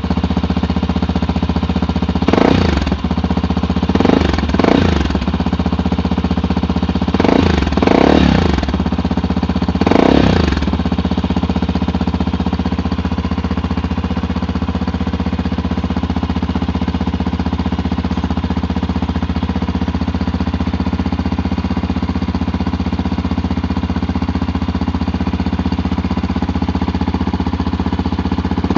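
Yamaha Tricker XG250's single-cylinder engine idling through a K2-tec aftermarket muffler. It is blipped about six times in quick short revs during the first ten seconds or so, then left to idle steadily.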